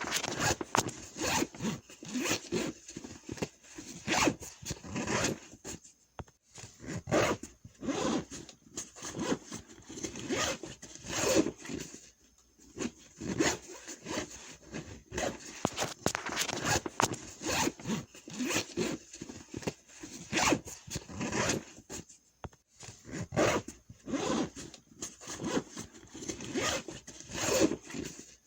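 Backpack being handled: a long run of quick rasping strokes of zipper and fabric, with a few short pauses.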